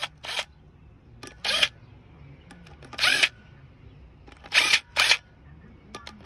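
Short bursts from a DeWalt cordless drill turning a bit on the Torx screws of a brake rotor hub, about five brief bursts a second or more apart.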